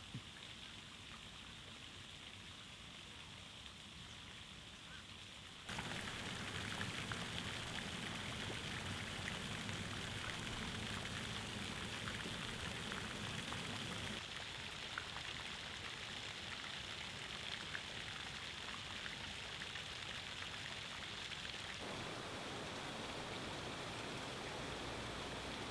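Steady hiss of falling water, faint, with abrupt jumps in level and tone about six, fourteen and twenty-two seconds in.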